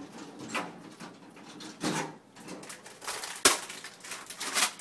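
Short rustling and handling noises, with one sharp click about three and a half seconds in.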